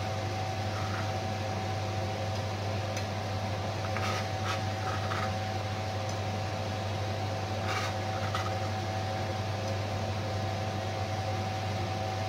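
A steady mechanical hum, with a few faint knife taps and scrapes on a plastic cutting board as garlic is minced and scraped onto a plate, about four and eight seconds in.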